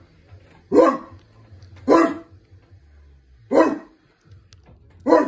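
A man imitating a dog, giving four short, sharp barks about a second and a half apart.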